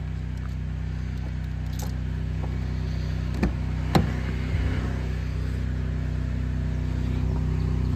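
Ford Maverick driver's door latch being pulled open: two sharp clicks about three and a half and four seconds in, the second louder. A steady low engine hum runs underneath.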